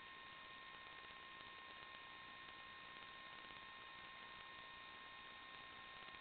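Near silence: a faint steady hiss with a thin steady whine over it, the electronic noise floor of the recording with no other sound.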